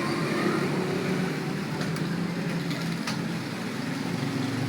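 A steady low rumble, like road traffic or running machinery, with a few sharp clicks from computer keyboard keystrokes during a typing test.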